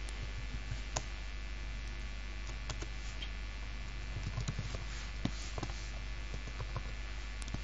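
Computer keyboard being typed on: scattered, irregular key clicks over a steady low electrical hum.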